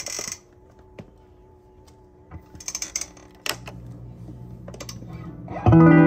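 Faint clicks and short rustling handling noises, then near the end a guitar chord struck through a Binson Echorec 2 echo unit, ringing out loudly.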